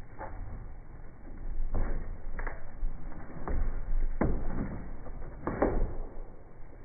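Irregular knocks and thumps, about six in a few seconds, from a dog's paws stepping and jumping on a wooden pallet platform, over a low rumble.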